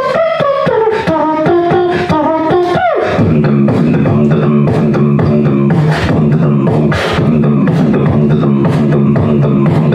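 Human beatboxer performing live into a handheld microphone: a sliding vocal melody for about three seconds drops in a steep falling glide into a deep, stepped bass line with sharp percussive hits on a steady beat.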